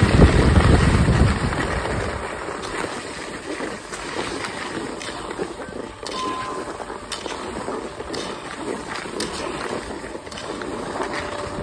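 Skis sliding and scraping over groomed snow on a descent, with wind buffeting the phone's microphone, heaviest over the first two seconds.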